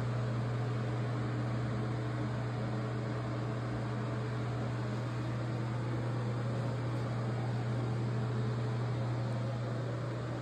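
A fan running: a steady low hum with a hiss over it.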